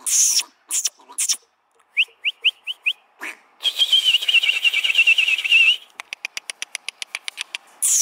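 A person making mouth noises to catch a puppy's attention. There are a few short rising squeaks, then a warbling trilled whistle lasting about two seconds, then a rapid run of clicks at about ten a second.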